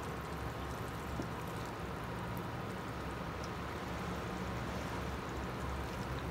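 Tomato sauce simmering in a steel pan on an induction hob, a steady sizzle over a low hum, while cooked white beans are tipped in from a ladle, with one soft knock about a second in.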